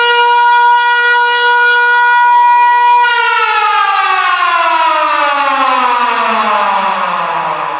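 Siren wailing on one steady high note for about three seconds, then winding down with its pitch falling slowly through the rest.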